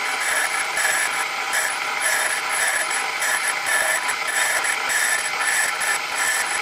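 Metal lathe running under power while the tool faces off the end of a piston casting, the cross-slide being wound in by hand: a steady mechanical whir of gears and cutting with a high whine.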